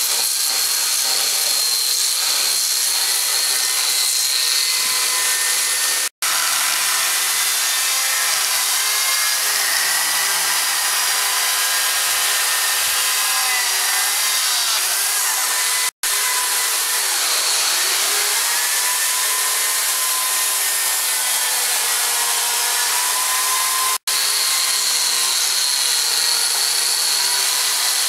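Hand-held electric wood-carving tools, a narrow belt sander and a small chain-bar cutter, running and grinding into wood, the motor whine dipping and recovering in pitch under load. The sound drops out for an instant three times.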